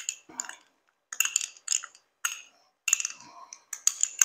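Metal spoon clinking against the inside of a small bowl in quick irregular bursts, stirring up cornflour slurry to thicken the sauce.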